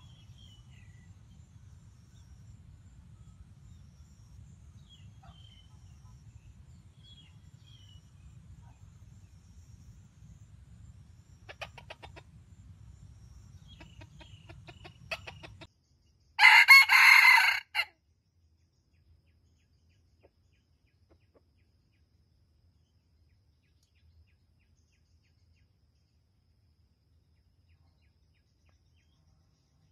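Junglefowl rooster crowing once, a short, loud crow of about a second and a half just past the middle. Before it come a few soft clucks over a low, steady rumble; after it, near silence.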